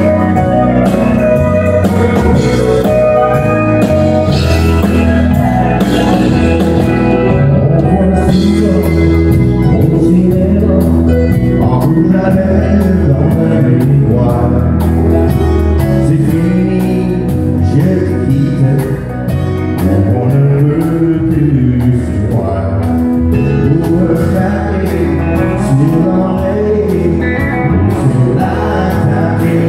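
Live country band playing, with acoustic and electric guitars and drums, and a man singing over them.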